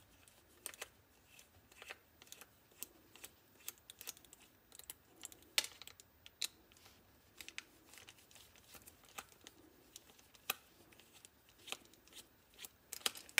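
Faint, irregular clicks and ticks of a precision screwdriver turning out small screws from the plastic yoke of a headphone headband, with light handling of the plastic parts.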